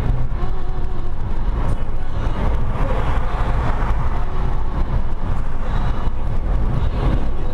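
Car driving at speed, heard from inside the cabin: a steady, heavy low rumble of engine and tyres on a broken-up road surface.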